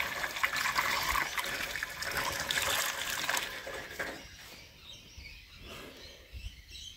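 Liquid being poured from a plastic jug through a plastic funnel into a car's fuel tank, a steady splashing pour. About four seconds in it thins to a trickle and dies away.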